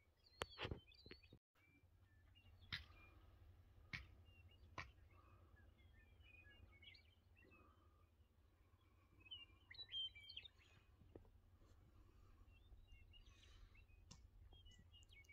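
Faint, scattered chirps of small songbirds over a low, steady background rumble, with a few sharp clicks in the first five seconds.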